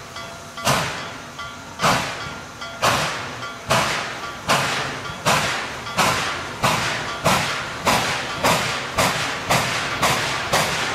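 Steam locomotive chuffing as it pulls away: sharp exhaust beats, each trailing off in a hiss, quickening steadily from about one a second to about two a second.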